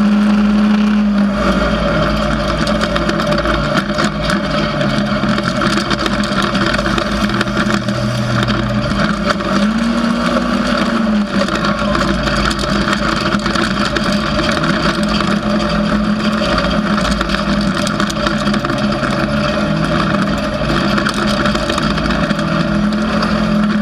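An off-road vehicle's engine running at speed, heard from on board over a constant rushing noise. Its note drops about a second in and rises and falls again around ten seconds in as the throttle and gears change.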